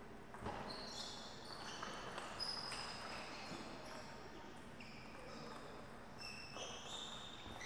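Table tennis ball taps and short high-pitched squeaks of players' shoes on the court floor, with sharp taps about half a second and a second in and again near the end.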